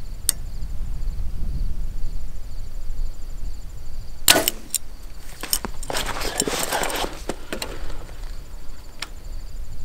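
Compound bow (Mathews VXR) shot: a single sharp crack of the string and limbs on release, about four seconds in. It is followed by a couple of seconds of scattered clicks and rustling. Faint steady insect trilling runs underneath.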